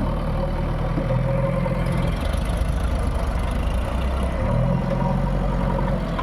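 Heavy diesel engine running, its speed rising and falling a few times as the machine works.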